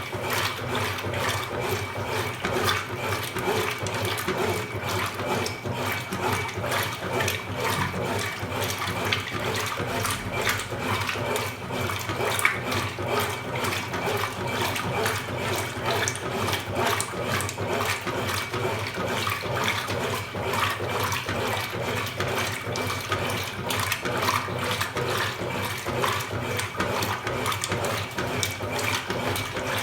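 Consul Supercargo 8 kg top-loading washing machine during a wash cycle: water splashing and sloshing steadily in the tub.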